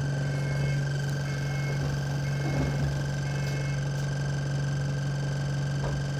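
Alexander Dennis Enviro200 Dart bus engine idling with a steady low hum and a high whine, while a short high beep repeats about once a second.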